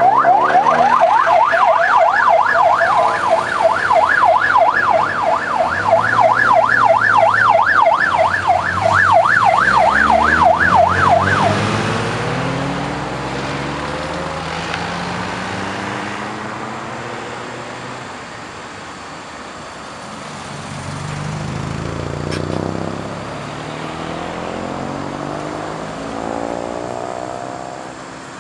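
A loud electronic siren tone warbling rapidly up and down, several sweeps a second, which cuts off suddenly about eleven seconds in. Convoy cars then drive past with their engines revving up and fading away.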